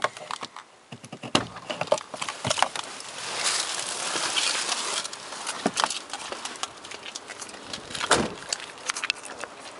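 Lifan Breez car door being opened from inside: clicks and knocks as the interior handle is pulled and the latch releases, then rustling and handling noise as someone climbs out. A loud thump comes about eight seconds in.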